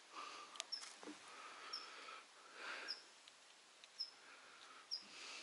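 Faint outdoor quiet with a small bird's short high chirp repeating about once a second. A couple of soft clicks come about half a second in, and there is some light rustling of handling.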